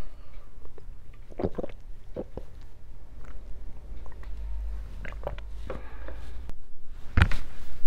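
A person swallowing gulps of water from a glass, with a few short wet mouth clicks and smacks; the loudest smack comes near the end.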